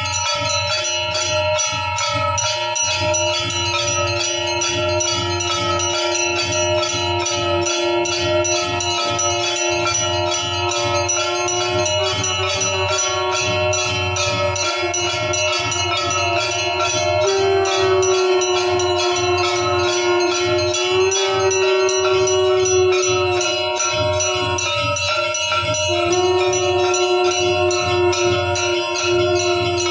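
Temple bells rung rapidly and without pause for aarti, in fast, even strikes. Underneath runs a steady held tone that shifts pitch a few times.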